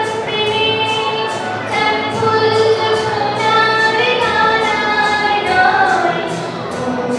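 A woman singing a slow melody into a microphone, holding long notes, over accompaniment with a steady beat of about two or three strokes a second.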